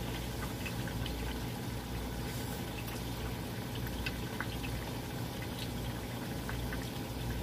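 Steady kitchen background hiss with a low hum underneath and a few faint clicks.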